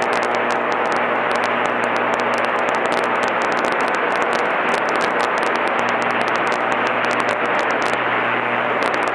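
Small training airplane's engine and cabin noise, a steady loud drone inside the cockpit, with frequent crackling clicks.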